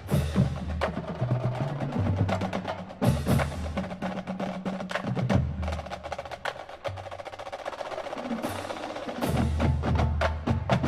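Marching band percussion section playing a feature on its own: rapid drum strokes and rolls over steady low bass notes, the horns silent.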